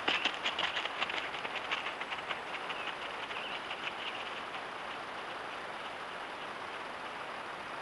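Footsteps of bear cubs crunching on a gravel road, quick crackling steps that thin out and fade over the first couple of seconds as they walk away, leaving a steady hiss.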